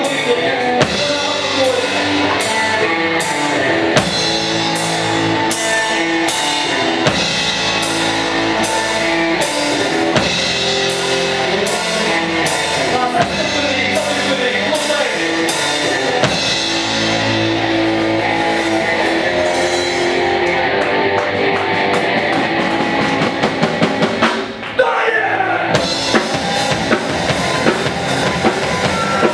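Live metal band playing: a drum kit keeping a steady beat under electric guitar. About 24 seconds in the band drops out for a moment, then crashes back in.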